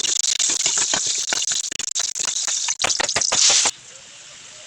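Food sizzling and crackling in hot oil in a cooking pan, a dense spatter of pops over a steady hiss, stopping abruptly near the end.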